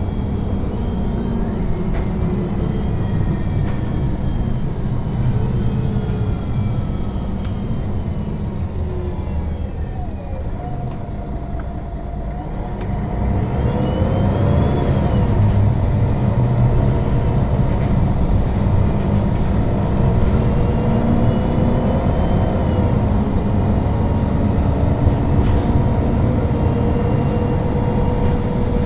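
2001 MAN NL 263 low-floor city bus driving: diesel engine and drivetrain running with a thin whine that falls in pitch as the bus eases off. A little past halfway the engine gets louder and the whine rises again as it accelerates.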